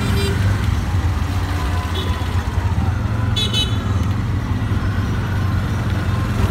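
Tuk-tuk's small engine running steadily, heard from inside the open cabin while riding through traffic. A short high-pitched horn toot of two quick beeps comes about three and a half seconds in.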